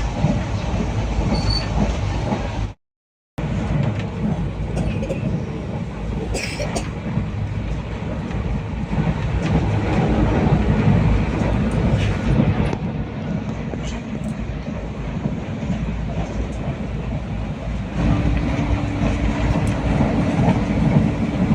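Howrah–Balurghat Express passenger train running, a steady rumble of the carriage and wheels on the track heard from on board. The sound breaks off briefly a few seconds in, and a steady low tone joins near the end.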